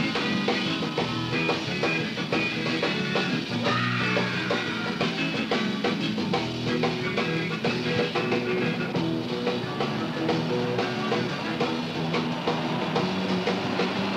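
Rock music with guitar and drums, played at a steady beat.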